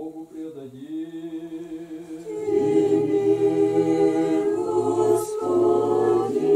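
Orthodox church choir singing a cappella, unaccompanied voices in chant. A thinner line of voices at first; about two and a half seconds in more voices join and the held chords grow louder.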